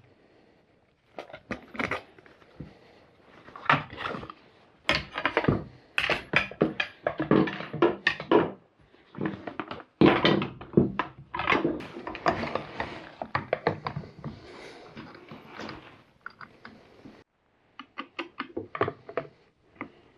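Irregular clicks, clanks and knocks of hand tools and chainsaw parts being handled as a full wrap handle is fitted to a chainsaw.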